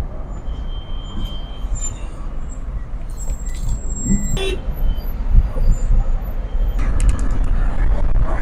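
Road and engine noise of a moving car heard from inside the cabin: a steady low rumble, with a few faint brief high tones and clicks.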